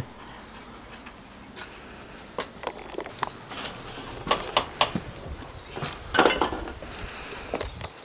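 Scattered light clicks and knocks at an irregular pace, with a denser cluster about six seconds in.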